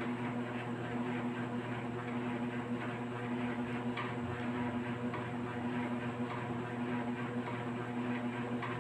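A steady low hum runs throughout, with faint, irregular scratchy ticks of a screwdriver turning a screw into a plastic toy gun's handguard.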